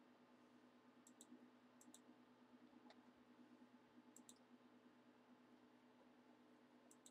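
Near silence with faint clicks of a computer mouse, several in quick pairs, over a low steady electrical hum.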